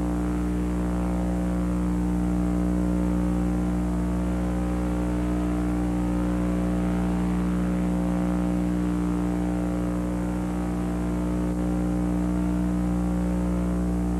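Steady electrical hum and buzz holding one pitch, with a dense stack of even overtones that does not change.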